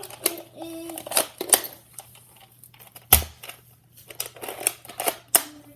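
Quick clicks, rattles and knocks of a scope rifle's parts being handled, with one sharp knock about three seconds in.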